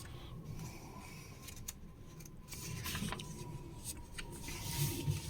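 Paper pages of a magazine being handled and turned: soft rustles with a few faint clicks, under a faint steady hum.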